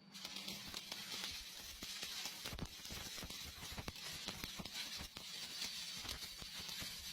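Electric arc welding: a steady crackling hiss dotted with many irregular sharp pops.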